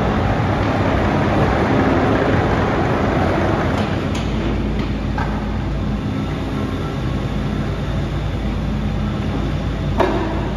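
Kobelco midi excavator's diesel engine running, with the hydraulics working as the boom and arm swing out and the bucket lowers. A single sharp knock near the end.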